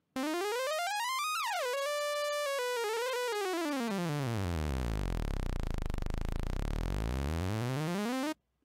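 Arturia Pigments analog-engine oscillator sounding one sustained, bright synth note whose pitch is swept by turning the coarse tune knob. It rises and falls over the first few seconds, holds on a steady pitch, then glides down to a deep bass note around the middle and back up before cutting off abruptly near the end.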